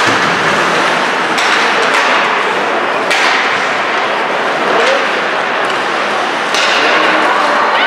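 Ice hockey play in a rink: several sharp clacks of sticks and puck against a steady wash of skate and arena noise.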